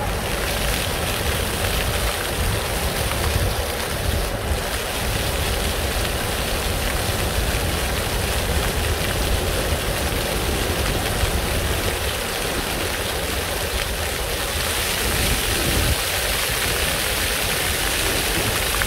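Ground-level plaza fountain jets spraying up from the pavement and splashing back down, a steady rush of water, with wind rumbling on the microphone. The spray gets louder and hissier about fifteen seconds in, as the jets shoot higher.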